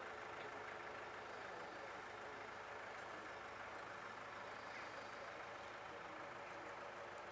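Heavy engine of site machinery running steadily, faint.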